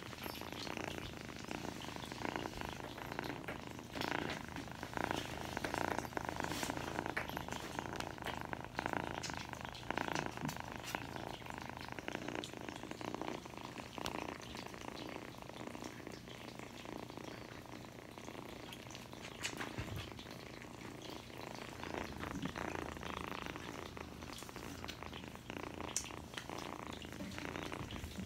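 Kittens purring close to the microphone, with frequent small clicks and rubbing noises from fur and a petting hand near the phone.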